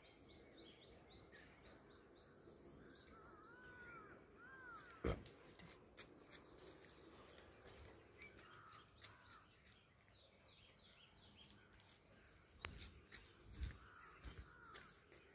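Faint birds calling: runs of quick falling chirps and a few arching calls. There is a sharp knock about five seconds in and a cluster of knocks and rustles near the end from the phone being handled.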